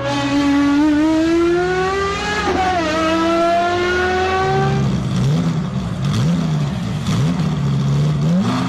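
Sports car engines at high revs. One accelerates hard, its pitch climbing steadily with a brief dip about two and a half seconds in. From about five seconds in, engines rev up and down in quick throttle blips.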